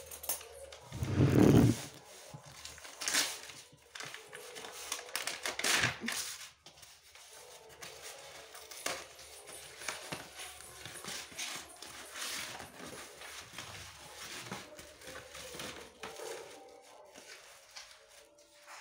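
Packaging handled and opened: a paper courier envelope, a cardboard box and bubble wrap rustling and crinkling in a series of irregular crackles. The loudest is a heavy rustle and bump about a second in.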